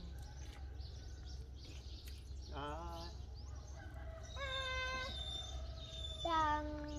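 Roosters crowing: several long crows at different pitches, starting a little before midway and again about two seconds apart, over a steady low rumble.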